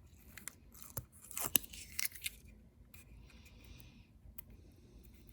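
Backing liner being peeled off double-sided mounting tape by hand: faint scattered crinkles and clicks, with a soft hissing peel lasting about a second, starting about three seconds in.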